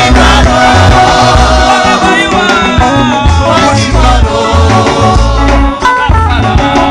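Loud gospel dance music with a heavy bass beat and singing.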